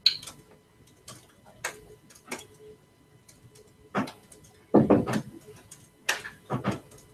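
Scattered clicks of typing on a laptop keyboard, irregular and sparse, with a few louder knocks in the second half.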